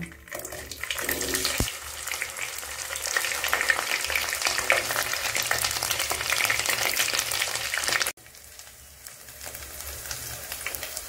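Boiled potato chunks sizzling and crackling as they fry in hot oil in a non-stick kadai, stirred with a spatula, with a low thump about a second and a half in. About eight seconds in the sizzle drops off suddenly, then carries on more quietly.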